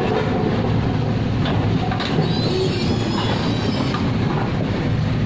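Hydraulic crawler excavators running steadily, their diesel engines humming under a dense metallic clatter, with a faint high squeal about two to three seconds in.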